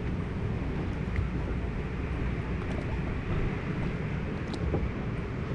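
Log flume boat gliding along its water-filled trough, a steady low rumble of water and hull with no clear rhythm.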